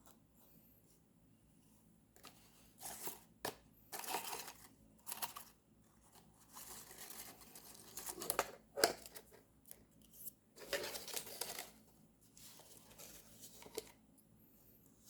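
Paper being handled at close range: a series of short rustling and tearing sounds that start about two seconds in and stop shortly before the end.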